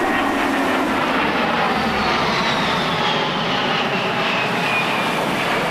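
A-10 Thunderbolt II's twin TF34 turbofan engines running overhead, a steady jet roar with a high whine that falls in pitch from about two seconds in as the jet passes.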